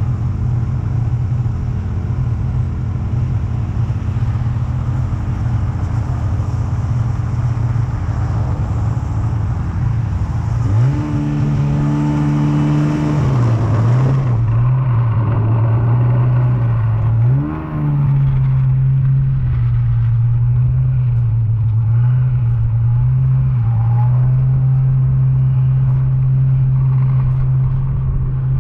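Snowmobile engine running under way. About ten seconds in its pitch climbs sharply, then dips and comes back up a couple of times with the throttle before holding steady at speed.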